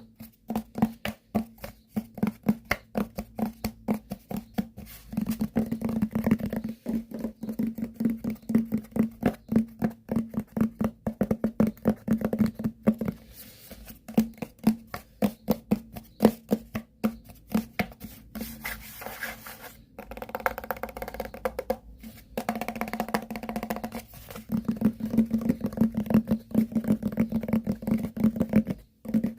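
Rapid tapping on hard objects, many quick taps a second, with a steady low ring under it in stretches and a few brief pauses.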